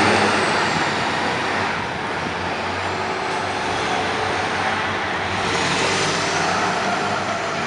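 Fire department aerial ladder truck driving away, its diesel engine fading over the first couple of seconds into steady city traffic noise.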